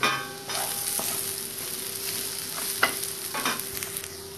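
Sliced onions, garlic cloves and ginger sizzling in hot oil in a non-stick frying pan while being stirred, with a few sharp scraping strokes in the second half.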